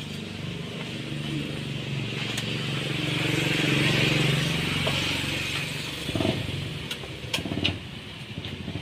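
Small motor-scooter engine running, with a hiss that swells to a peak about halfway through and then fades.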